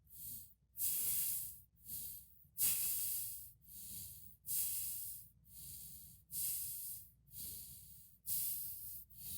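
A person breathing heavily through the nose, in-and-out breaths about one a second, with longer, louder breaths alternating with shorter, softer ones.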